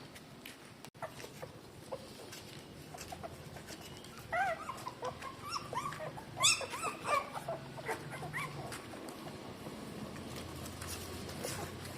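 Three-day-old newborn puppies giving a cluster of short, high-pitched cries, from about four to eight and a half seconds in.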